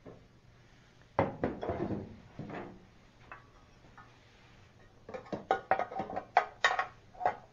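Metal tools and engine parts knocking and clinking as they are handled on a workbench. There are a few knocks about a second in, then a quick run of sharp clinks with a ringing tone in the last couple of seconds.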